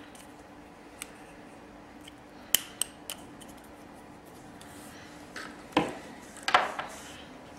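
Small metal hand tools and a terminal connector being handled: a few light clicks, then a louder clatter of several clicks near the end, over a faint steady hum.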